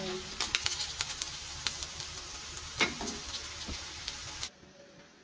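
Beef loaf frying in oil in a pan, sizzling steadily, with scattered clicks and scrapes of a wooden spatula stirring the pieces. The sizzle cuts off abruptly about four and a half seconds in, leaving quiet room tone.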